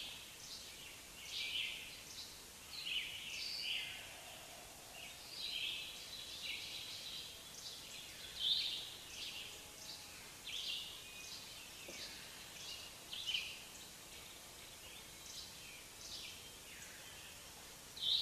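Small birds chirping: short, high chirps, irregular but about one a second, over a low steady background noise.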